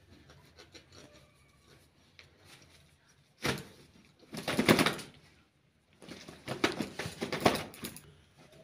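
A rooster's feathers being pulled out by hand, heard as rustling and ripping. After a few faint clicks, a short burst comes about three and a half seconds in, a louder one about a second later, and a run of bursts near the end.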